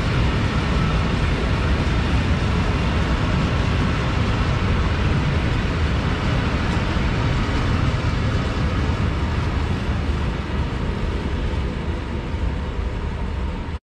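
A freight train of open goods wagons rolling past, a steady rumble and rattle of wheels on rails. It eases a little near the end as the last wagons go by.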